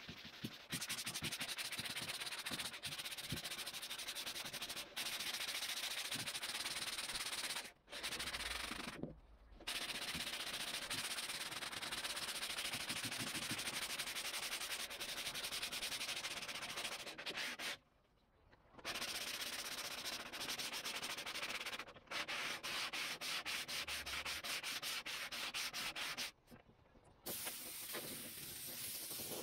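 Sandpaper on a hand sanding block rasping across cured body filler on a VW Beetle body panel, in quick back-and-forth strokes with a few short pauses. The filler is being block-sanded over a guide coat to show its high and low spots. Near the end a compressed-air blow gun hisses steadily, blowing off the sanding dust.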